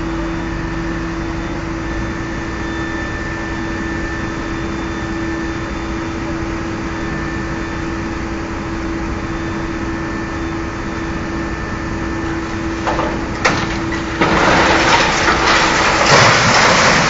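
A steady machine hum with a constant tone, then a sharp crack about thirteen seconds in, followed by a loud, sustained crashing and crackling near the end.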